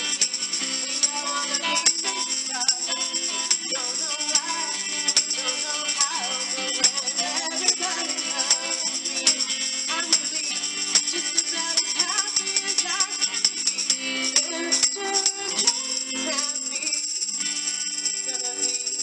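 Live acoustic band: acoustic guitar strumming chords while hand percussion is shaken in a steady beat, and a woman sings.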